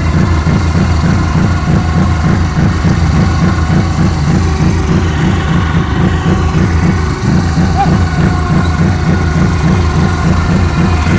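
Quad bike (ATV) engine running steadily at low revs, a deep, evenly pulsing rumble.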